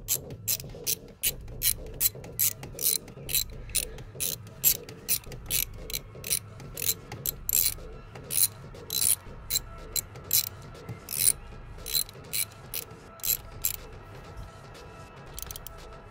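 Hand socket ratchet clicking as it is worked back and forth on a bolt, about two clicks a second, stopping near the end.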